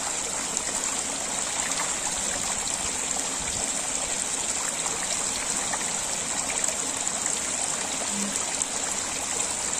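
Steady patter and trickle of several thin streams of water falling into a fish tank.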